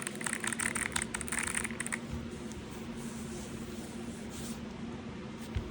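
Keys of a Lemokey P1 Pro mechanical keyboard clicking in a quick flurry for about two seconds, then stopping. A steady low hum runs underneath, and there is a single thump near the end.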